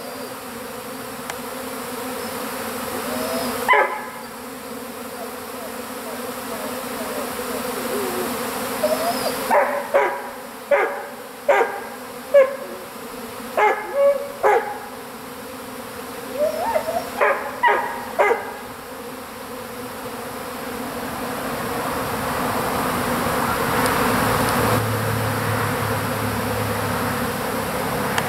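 A honeybee swarm buzzing in the air, the hum swelling louder over the last several seconds. A dog barks in short clusters of several barks in the first two-thirds.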